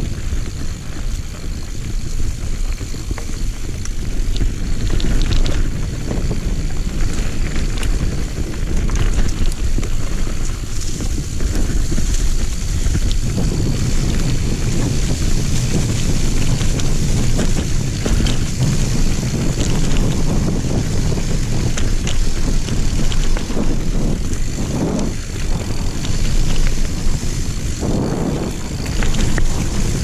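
Mountain bike descending a dirt singletrack: wind rushing over the microphone, with the tyres rolling over packed dirt and dry leaves and occasional clatters from the bike over bumps.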